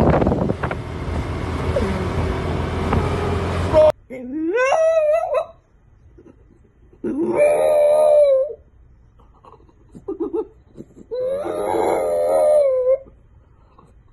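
Street traffic and wind noise for about four seconds, then a French bulldog howling: three drawn-out howls, each longer than the last, the first sliding up in pitch before it holds, with a couple of short yips between the last two.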